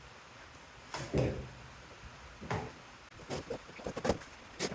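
Clunks and clicks of metal parts being handled while the casing of a power supply unit is taken apart: a dull knock about a second in, another a little later, then a quick run of small clicks near the end.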